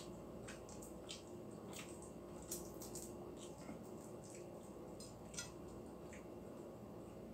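Balut eggshell being peeled by hand: irregular small clicks and crackles as bits of shell break and come away, over a low steady hum.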